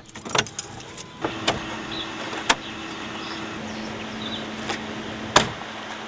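A car key clicking in the ignition, then the clicks and clunks of a car door opening, and a car door slamming shut about five seconds in, over a low steady hum.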